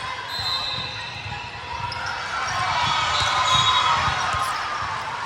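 Ambience of an indoor sports hall with volleyball play: repeated dull thuds of balls bouncing on the court floor and being hit, over a murmur of voices, with a few brief high squeaks.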